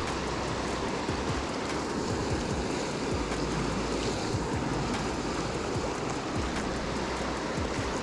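Steady rush of a mountain river's flowing water.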